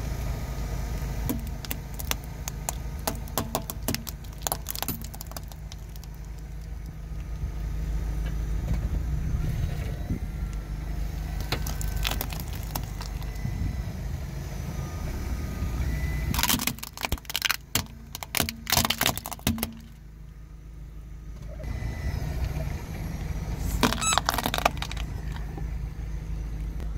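A car's engine running low as its tyre rolls over a row of plastic clothes pegs, which crack and snap in clusters of sharp clicks.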